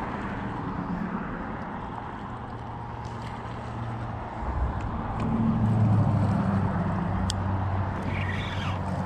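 An engine droning steadily, growing louder from about halfway through as it draws nearer, over a noisy hiss of wind and water.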